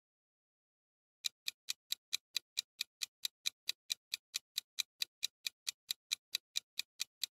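Countdown-timer sound effect of a ticking clock: sharp, even ticks about four and a half a second, starting about a second in, counting down the time left to answer.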